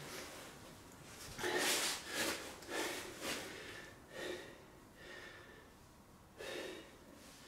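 A man breathing hard in a series of loud, gasping breaths, loudest about two seconds in and easing off later, as he gets his breath back after working a bow drill to an ember.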